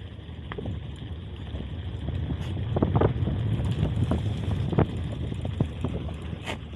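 Mountain bike rolling over a rough trail: a low rumble from the tyres and frame, with scattered knocks and rattles from the bike jolting over bumps.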